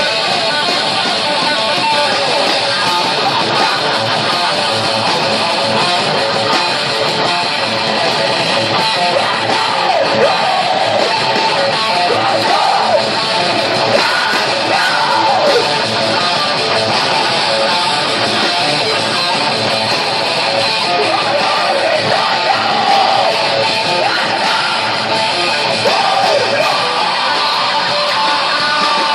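Heavy metal band playing live: loud, dense distorted guitars with bending lead lines.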